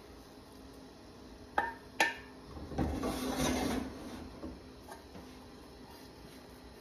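Saucepans and a silicone spatula clinking and scraping on a gas stove while a butter-and-flour roux is worked out of a small pan. Two light knocks come about a second and a half in, then about a second of scraping.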